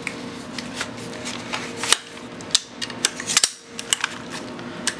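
Sharp metallic clicks and clacks from an AR-15-style rifle being handled, several at irregular intervals with the loudest in the second half, over a faint steady hum.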